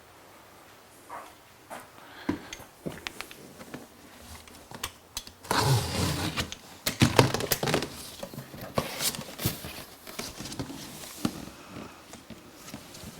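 Seat rail being handled and test-fitted: scattered knocks, clicks and rattles, with a louder flurry of clunks about halfway through.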